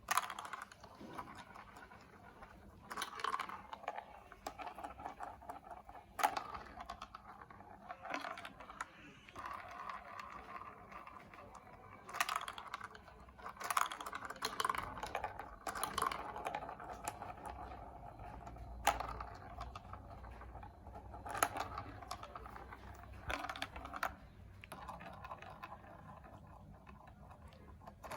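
Plastic marble run building blocks being handled, with irregular sharp clicks and light clattering and scraping of hard plastic pieces against each other.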